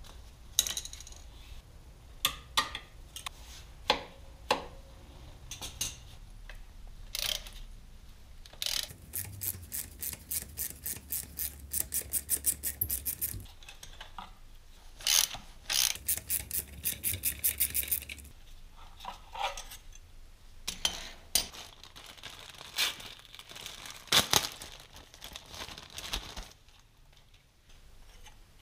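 Hand socket ratchet clicking in two long runs of rapid, even clicks as bolts are turned on the motorcycle's footpeg bracket, with scattered single clicks and knocks of metal tools being handled.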